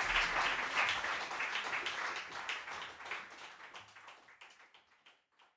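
Audience applause dying away: dense clapping thins out to a few scattered single claps near the end.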